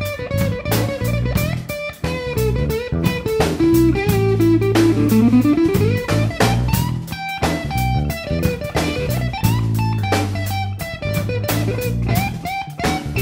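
Background music with guitar over bass and a drum kit playing a steady beat. A note slides up in pitch about five seconds in.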